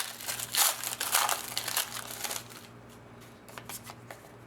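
Trading-card pack wrapper crinkling and rustling as it is opened and handled, for about two and a half seconds, then fainter clicks and taps of cards being handled.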